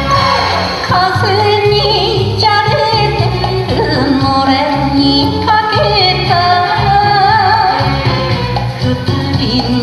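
Instrumental passage of a Japanese popular song: a wavering lead melody over a steady bass and rhythm accompaniment.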